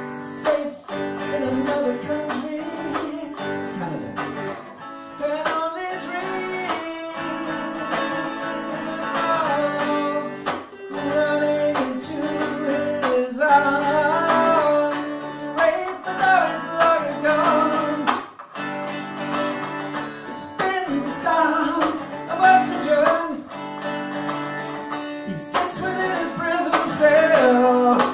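Acoustic guitar strummed steadily in a live solo folk song, with a vocal melody line over the chords.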